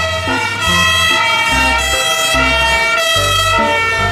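A German fire engine's siren sounding steadily as a turntable-ladder fire truck drives along, loud and pitched.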